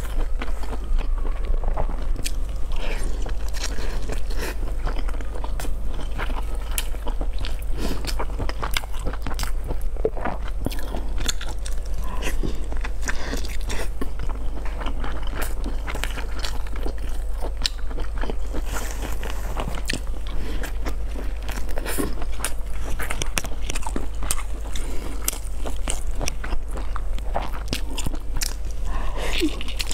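A person biting and chewing a soft filled roll up close, with frequent small wet mouth clicks and crackles throughout. A steady low hum runs underneath.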